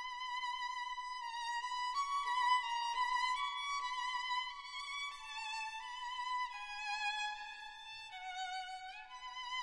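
Background music: a violin playing a slow melody, each note held about a second with vibrato, with a few slides between notes.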